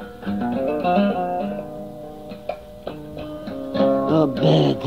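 Guitar playing an instrumental passage of a song between sung lines, chords and single notes ringing on, from an old home cassette recording.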